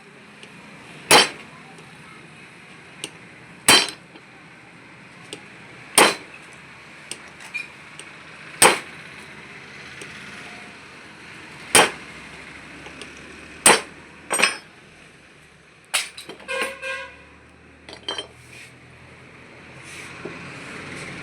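Hammer blows on metal alternator parts: single sharp, ringing strikes roughly every two to three seconds, then a short metallic rattle and a few light clicks near the end.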